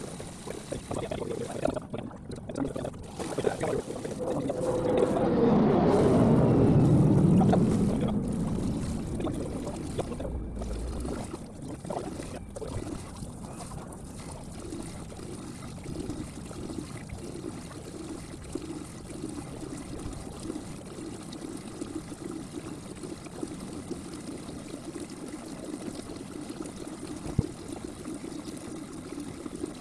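Small electric dewatering pump running steadily, with water trickling and pouring through its hoses as it pumps out a partly sunk boat. A louder rushing swell rises and falls about five to eight seconds in.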